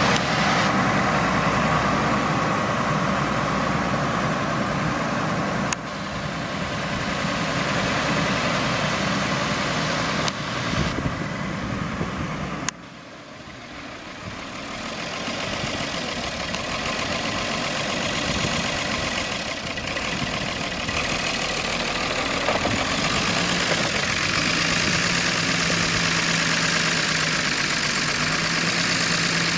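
Ford 9600 tractor's six-cylinder diesel engine idling steadily. The sound changes abruptly three times and is quieter for a few seconds after the last break before rising again.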